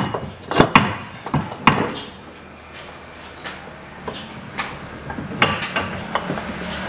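Peugeot 407's right front driveshaft being worked out by hand, the steel shaft knocking and clunking against the surrounding metal in a run of irregular sharp knocks. The knocks come thickest in the first two seconds and again from about five seconds on.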